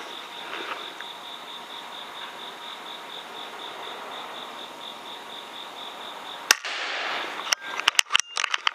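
A single air rifle shot, one sharp crack about six and a half seconds in, followed near the end by a quick run of clicks and knocks. Behind it a faint high chirp pulses evenly, about six times a second, over a steady hiss.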